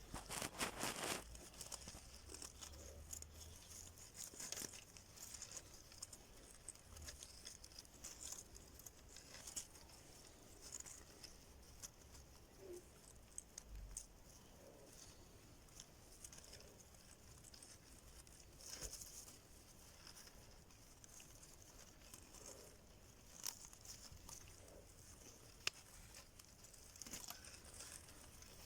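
Faint, scattered clicks, taps and rustling of hand work, with a sharper tick near the end.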